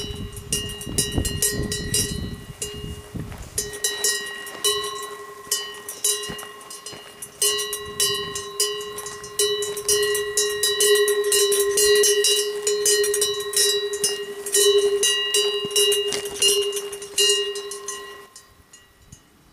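Cowbell on a grazing cow clanking over and over, a ringing metallic tone struck many times in quick irregular succession. It stops about a second before the end. A low rumble is heard under it in the first few seconds.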